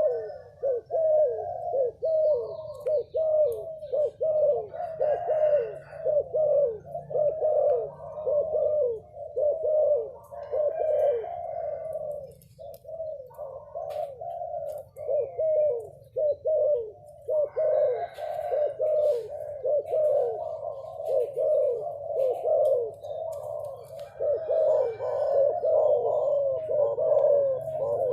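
Many pigeons cooing together in a continuous, overlapping chorus of short falling notes, over a faint low steady hum.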